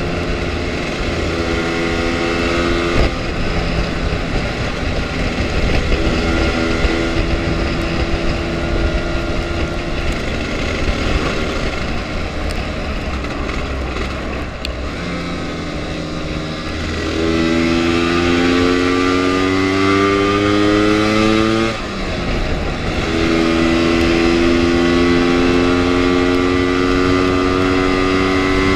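Lambretta scooter engine running on the road under a low rush of wind on the microphone. It cruises at a fairly even pitch, then pulls hard with its pitch climbing, drops briefly at a gear change, and climbs again as it accelerates.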